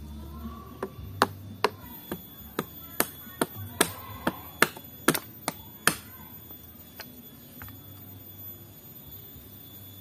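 A hand-made stick tool knocking and prying at a coconut as the husk is stripped from the hard shell: about a dozen sharp knocks in the first six seconds, then quieter.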